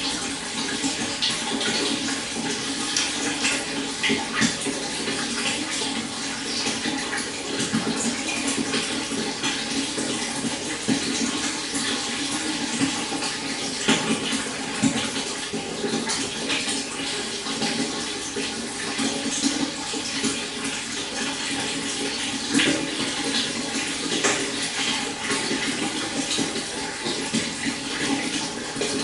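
Stream water flowing and babbling steadily, with frequent small splashes.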